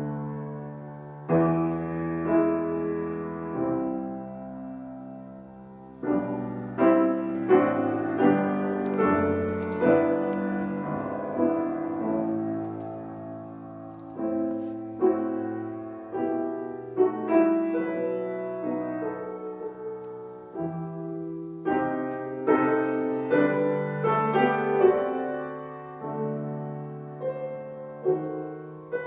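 Grand piano played solo: a series of struck chords and runs, each ringing and fading, the loudest chords coming about a quarter of the way in and again about three-quarters through.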